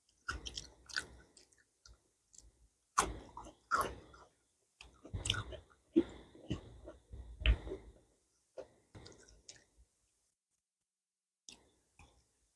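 Close-up chewing of rice and meat curry, with wet mouth clicks in irregular bunches for about eight seconds, then only a few faint clicks.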